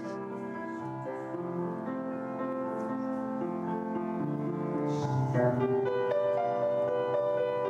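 Piano music in slow, held chords that swell louder about five seconds in.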